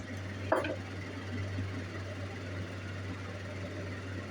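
A single sharp snip about half a second in, of shears cutting thin silver bezel strip, over a steady low hum.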